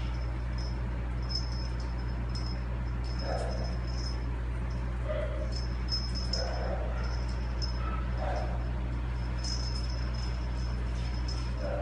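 Formosan mountain dog giving about five short, soft whines over a steady low hum.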